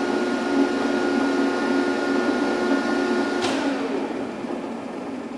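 Landis 1R universal cylindrical grinder running with its hydraulic pump and grinding wheel spindle on, a steady hum with the spindle bearings sounding good. About three and a half seconds in there is a click, and the pitch falls as the machine is switched off and the wheel spins down.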